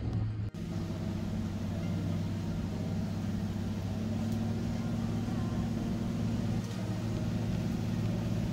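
The yacht's twin Detroit diesel engines running steadily under way, a low even drone with a brief dip about half a second in.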